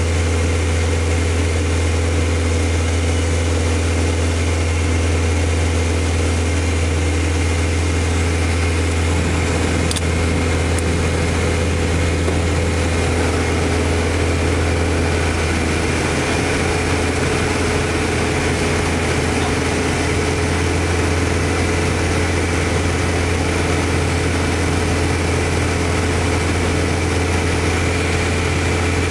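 Light aircraft's piston engine and propeller droning steadily, heard inside the cockpit; the low note shifts slightly about halfway through.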